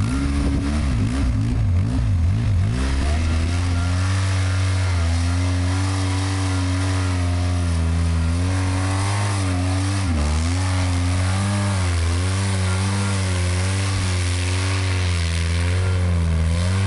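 ATV engine revving up and down under load as the quad spins through loose sand, its pitch rising and falling over and over.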